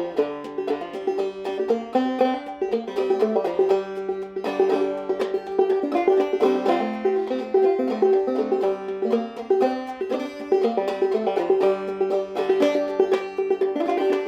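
Solo banjo played in a fast, rolling picking pattern, quick plucked notes over a note that rings again and again.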